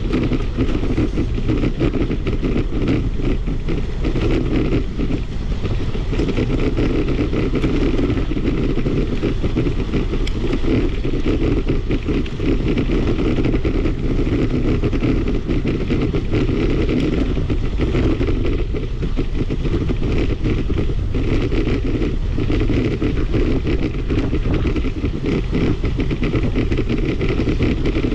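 Continuous rumble and fine rattling of a bicycle riding along a paved path, heard from a camera on the bike, steady throughout.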